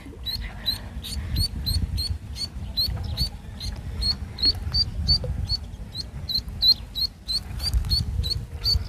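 A duckling peeping over and over, short high peeps about three a second, while it is jigged on a line as live bait for snakehead. A steady low rumble runs underneath.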